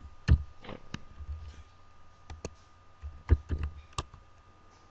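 Computer keyboard keys clicking as a command is typed: irregular keystrokes, a few of them louder, the loudest near the start and about three seconds in.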